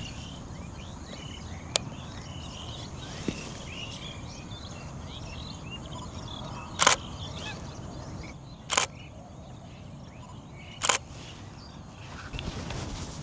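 Birds chattering with many short overlapping calls, from a tree full of pied starlings and mynas. The calls thin out in the second half. Three short, sharp bursts of noise about two seconds apart are the loudest sounds.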